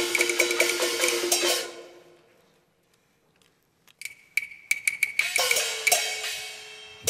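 Cantonese opera percussion band of gongs, cymbals and wooden clappers playing a fast martial beat, about five strokes a second. It stops about two seconds in, leaving about two seconds of near silence, then comes back with sharp clapper strokes and a gong whose ringing tone bends in pitch.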